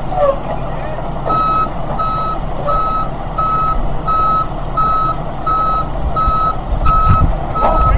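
Truck's reversing alarm beeping, one steady pitch about three beeps every two seconds, starting a little over a second in, over the low rumble of the truck's engine running.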